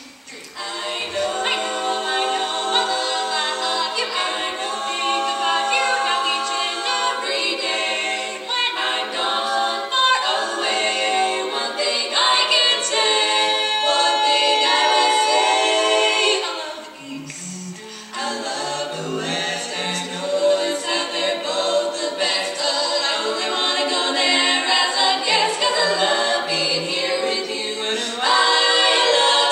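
Women's quartet singing a cappella in close four-part harmony, several voices holding sustained chords together. The singing briefly drops softer a little past halfway, then carries on.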